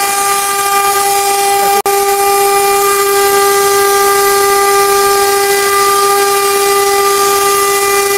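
CNC router spindle running with a steady high-pitched whine over an even hiss. The sound cuts out for an instant about two seconds in, then resumes unchanged.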